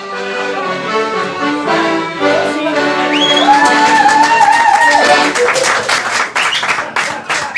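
Music with a held, sliding melody line, then a group of people clapping along in a steady rhythm, about four claps a second, from a little over two-thirds of the way through.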